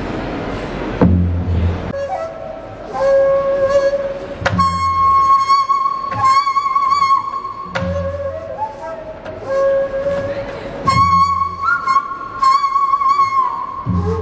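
Korean traditional music starts about a second in. A flute plays long held notes that waver and bend in pitch, over deep drum strokes that come about every three seconds.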